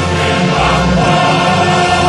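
Background music: a choir singing long, held chords.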